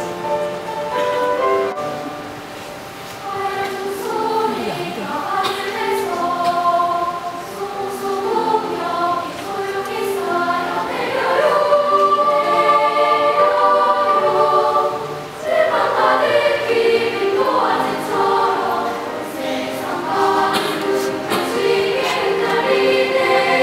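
Children's choir singing in harmony, several voice parts holding and moving between sustained notes.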